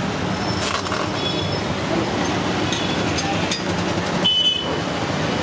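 Busy street traffic: a steady hum of passing motorbikes and cars, with a short high tone about four seconds in.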